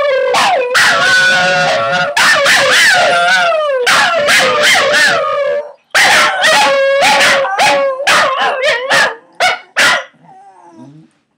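Scottish terriers howling together, several wavering howls overlapping. After a brief break about halfway the howling starts again, grows shorter and choppier, and stops near the end.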